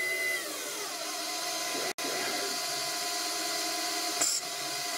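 Hercus PC200 CNC mini lathe spindle running, with a steady motor whine that falls in pitch during the first second as the spindle slows from 3000 rpm to 1500 rpm for thread cutting. There is a brief dropout near two seconds in and a short hiss a little after four seconds.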